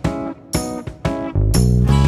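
Background music: guitar chords struck about twice a second, with a deep sustained bass line coming in about one and a half seconds in.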